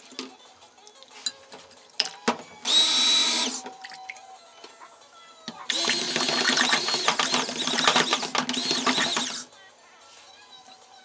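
Immersion stick blender running in a glass measuring cup of soap oils and red colorant: a short burst about three seconds in, then a longer run of about four seconds, with a steady whine. Before that, a few light clicks of a spatula against the glass.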